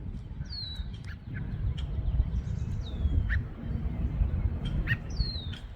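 Blue jay giving three high, downward-sliding whistled calls, about two and a half seconds apart, over a low rumbling noise on the microphone.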